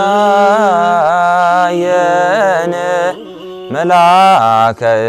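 A male voice chanting an Ethiopian Orthodox hymn in long, wavering, ornamented phrases over a steady held low note, with a short breath pause about three seconds in.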